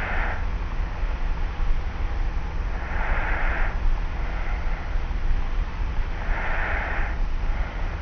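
Light snoring breaths of a sleeper lying on their back, soft and airy, coming about every three seconds. Under them lie a steady low rumble and hiss.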